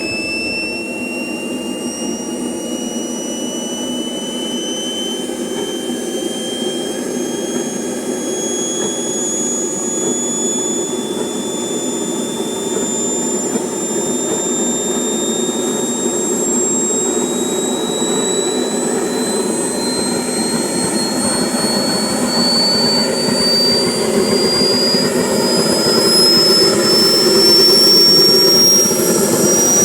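Radio-controlled model airplane engine running with a high whine that climbs slowly and steadily in pitch and grows louder over the stretch.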